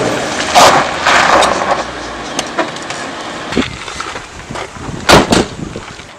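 An SUV approaching and pulling up, with several sharp bangs over it; the loudest are two quick bangs about a quarter second apart, roughly five seconds in.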